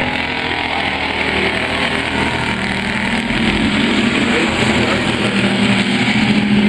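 Pure stock race cars' engines running hard as a pack laps a dirt oval, the drone of several engines together. The sound grows louder over the second half as cars come past close by.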